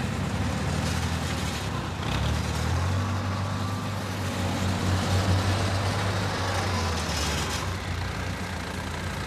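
Diesel engine of a tracked rice combine harvester running steadily as it moves across the field. Its low hum grows louder and fuller nearly three seconds in.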